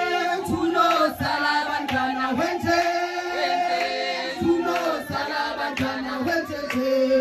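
A group of voices singing a song together in harmony, holding long notes.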